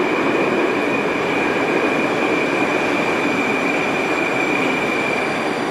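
2010 Metrowagonmash 81-717.5A/714.5A metro train running away into the tunnel: a steady rumble of wheels on rail with a high, steady wheel squeal that fades out near the end.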